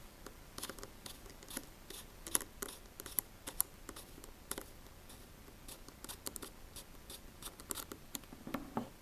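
Irregular light clicks and scrapes of a small precision screwdriver working a tiny screw into an iPhone 5c's casing, with a slightly heavier knock near the end.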